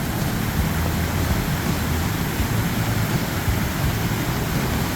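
Big Manitou Falls on the Black River: the steady, even rush of a large waterfall, loud and unbroken.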